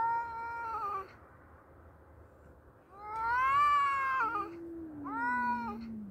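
Two tomcats caterwauling at each other in a territorial standoff. Three long, high, drawn-out yowls come at the start, about three seconds in (the loudest), and about five seconds in. A lower, slowly falling moan from the other cat begins between the second and third yowls and runs under the last one, the two cats voicing at once.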